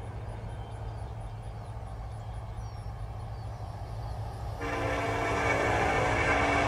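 Horn of a BNSF SD70ACe locomotive leading an approaching train, sounding one long blast that starts about two-thirds of the way in, over a steady low rumble.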